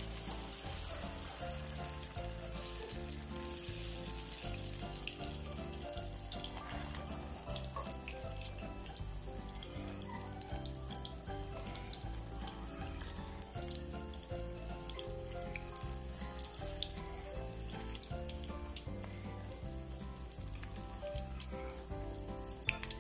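Turon (banana and jackfruit spring rolls) deep-frying in hot oil and caramelized sugar in a wok: a steady sizzle with many small crackling pops. Background music with a steady beat plays underneath.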